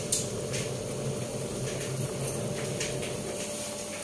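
Crabs in water at a rolling boil in a stainless steel pot on a gas stove: a steady rushing noise with a low hum and a few faint ticks.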